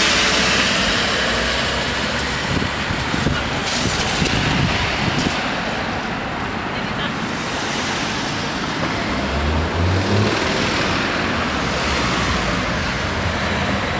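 Road traffic: a line of cars pulling away and driving over a railway level crossing, engines and tyres passing close by in a steady stream, with one engine's low hum swelling about nine seconds in.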